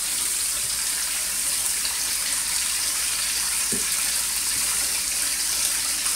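Beef short ribs sizzling in a skillet on the stove: a steady, even hiss. There is one soft knock near the middle.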